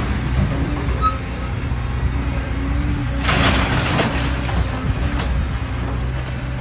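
Cat tracked excavator's diesel engine running steadily as its arm tears into a house. About three seconds in, a burst of crashing and clattering lasts a second or so as the structure breaks and debris falls.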